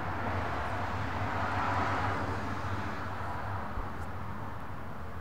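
Background traffic noise: a steady low hum with a vehicle passing, swelling about two seconds in and then fading.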